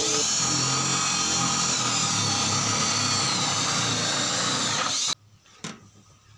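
Handheld electric drill running as it bores holes, its motor whine dipping slightly in pitch partway through as the bit loads up. The drill stops abruptly about five seconds in, leaving a few faint clicks.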